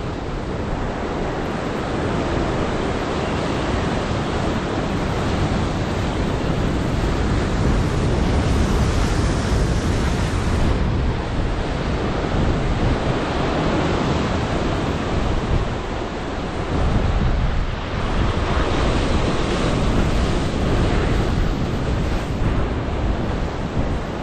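Rough surf breaking and surging among boulders, a loud, steady wash of waves, with wind buffeting the microphone.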